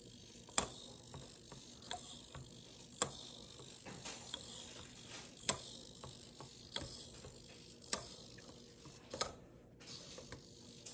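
Small PenguinBot 2.0 walking robot stepping on a wooden table, its servo motors whirring. Its feet tap the wood in a slow, even rhythm of about one step every 1.2 seconds.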